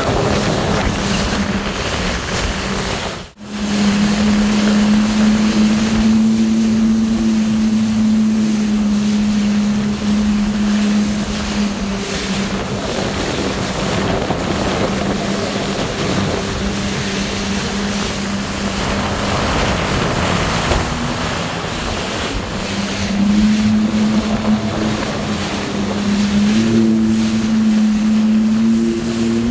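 Jet ski engine running at a steady drone underway, with water rush and wind buffeting the microphone. The sound cuts out for a moment about three seconds in.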